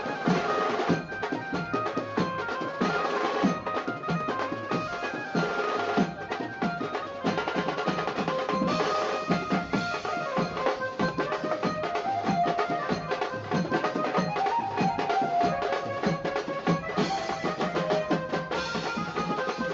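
Music with fast, busy drumming under a melody, keeping a steady beat.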